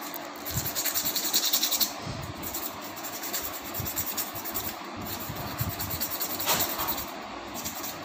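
Emery sheet rubbing rust off the steel rotor and shaft of a wall fan motor: quick back-and-forth scraping strokes, fastest and loudest in the first two seconds, then softer and more uneven.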